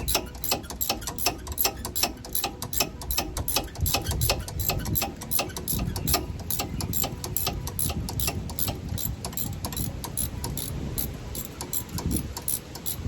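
Rapid, even mechanical clicking at about six clicks a second, fading out near the end, heard during brake work on a car wheel.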